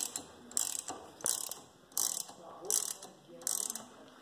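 Rivetec HL-1 ratchet rivet-nut tool being worked to set a threaded rivet nut: the ratchet handle swings back and forth, giving a short burst of pawl clicks about every two-thirds of a second, six times.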